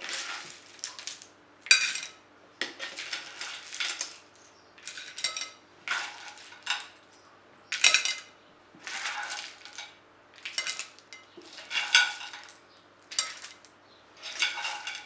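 Clam shells clattering as they are scooped with a plastic slotted spoon from a non-stick frying pan and tipped onto a porcelain platter, in bursts about once a second.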